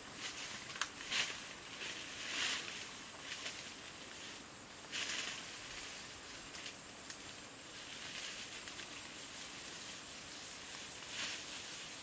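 Soft rustling and swishing of grass and leaves as a person walks through tall vegetation, with a few louder brushes about a second in, near 2.5 s, at 5 s and near the end. Under it runs a steady high-pitched insect drone.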